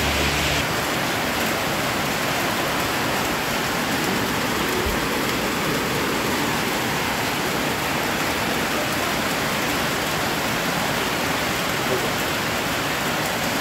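Heavy rain falling on a corrugated metal roof, a steady, even hiss.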